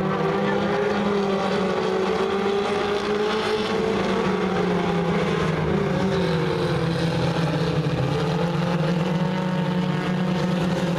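A pack of four-cylinder pure stock race cars running laps together on a dirt oval. Their engines make a steady, continuous drone, with pitches that rise and fall a little as the cars go around.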